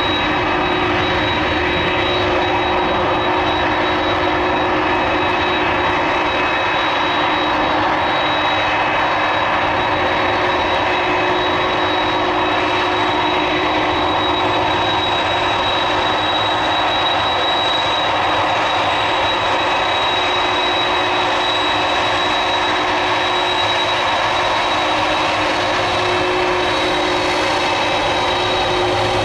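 Boeing 747-400F freighter's jet engines running steadily, a broad roar with a constant high whine on top.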